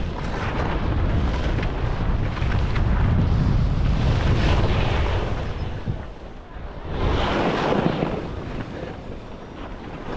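Skis scraping and swooshing across packed snow through turns, the strongest swoosh about seven seconds in, with wind buffeting the camera microphone as a low rumble through the first half.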